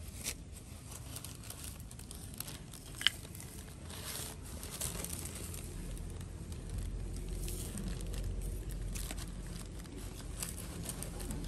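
Plastic bag rustling and crinkling as hands handle a dry soil and bark-chip mix, with one sharp tick about three seconds in.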